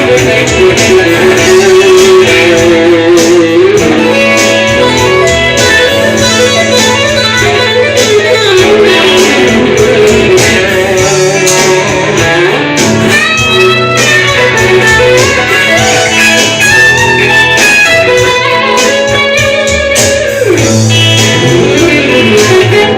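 Ibanez RGT320Z neck-through electric guitar improvising clean lead lines, with several bent notes, over a soft-rock backing track in A major with a steady bass line.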